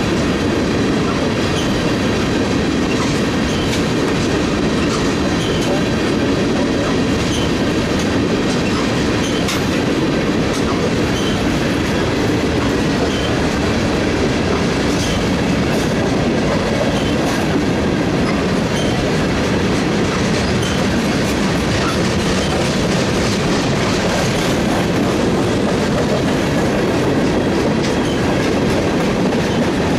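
Freight train of tank cars rolling past: a steady rumble of steel wheels on rail, with scattered clicks as the wheels cross rail joints.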